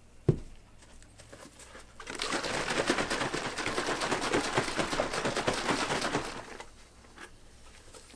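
A thump as a salt canister is set on the table, then about four seconds of dense, rattling noise from a plastic jug being shaken to mix a strong salt solution, fading out near the end.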